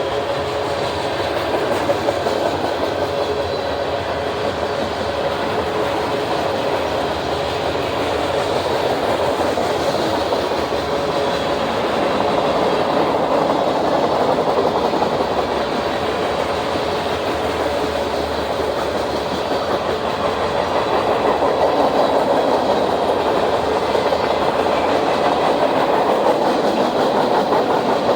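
Norfolk Southern train's cars rolling past on the rails, a steady rumble of wheels on track that grows slightly louder about two-thirds of the way through.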